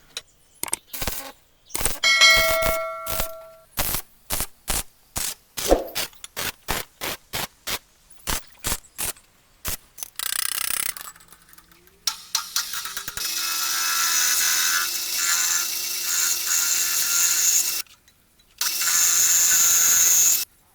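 A run of sharp, irregular metal-on-metal hammer blows, one about two seconds in ringing on like a struck bell. About halfway through these give way to a lathe cutting metal, a steady scraping hiss that stops briefly near the end and starts again.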